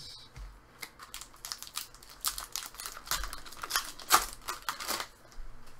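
Trading card pack wrapper crinkling and being torn open by hand: a rapid run of crackles, sparse at first, densest from about two to five seconds in, then stopping.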